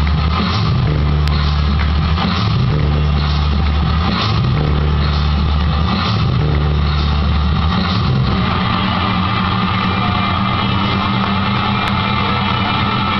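Loud dance music played over a sports-hall PA for a breakdance routine, heavy and distorted on the camera's microphone, with a beat about once a second. After about eight seconds the beat gives way to steadier held tones.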